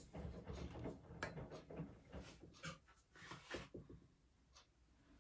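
Faint, soft scraping and light taps of a silicone spatula working sticky bread dough in a stainless steel mixing bowl, coming irregularly and dying away near the end.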